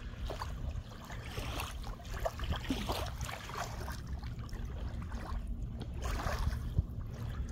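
Small river waves lapping and trickling over a sandy shoreline in irregular little splashes, over a steady low rumble.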